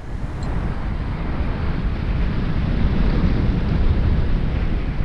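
Steady wind rumble on the microphone of a camera riding on a moving recumbent trike.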